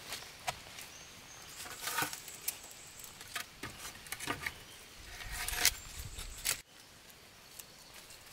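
Irregular light clicks, taps and rustles, with a louder stretch of rustling about five seconds in, then an abrupt drop to a quieter background about six and a half seconds in.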